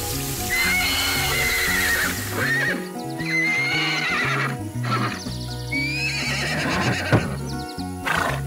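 Horse whinnying, two drawn-out quavering neighs in the first half, over background music with a bass line.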